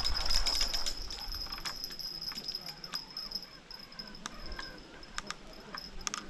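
Cicadas buzzing steadily at a high pitch, with scattered light clicks over them.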